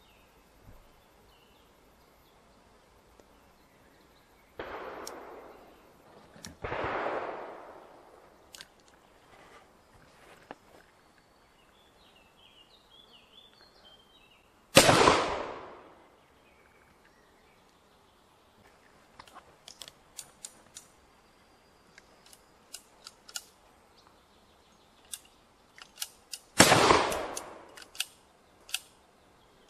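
Original .44 percussion revolver, most likely the Remington New Model Army, firing black-powder paper cartridges outdoors. Two quieter, duller blasts about two seconds apart come first. Two loud sharp shots with echoing tails follow about twelve seconds apart, with a scatter of sharp clicks before the last shot.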